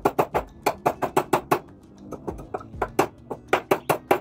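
Claw hammer driving nails into a wooden chair frame joint: two runs of quick, sharp strikes, about five a second, with a short pause about two seconds in.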